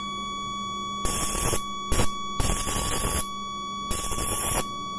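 Eclipse Forcee 400 electrosurgical cautery unit sounding its steady high activation tone while keyed by the foot switch in spray coagulation mode. Over the tone come four bursts of hissing crackle, each under a second, as the pen electrode sparks onto chicken tissue without touching it (non-contact fulguration).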